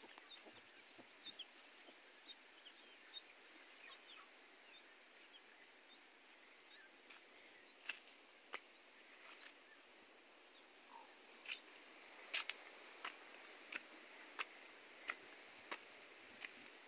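Faint chirping of small birds in a quiet rural setting. In the second half come sharp, separate taps, about one or two a second.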